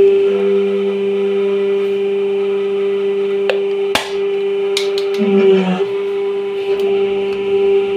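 Hydraulic press running with a steady pitched hum while its ram crushes plastic containers. Sharp cracks of plastic break through the hum, the loudest about four seconds in, followed by a brief crackling crumple just after five seconds.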